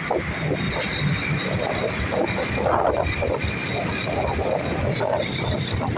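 Road and engine noise from riding along in moving traffic, with wind buffeting the microphone.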